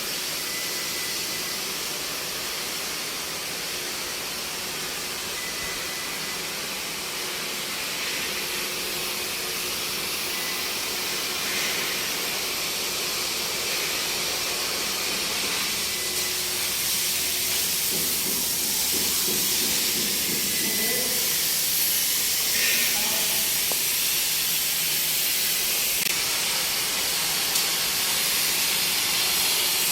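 CNC plasma cutting torch cutting metal: a steady hiss from the plasma arc and its air jet, growing slightly louder over the run.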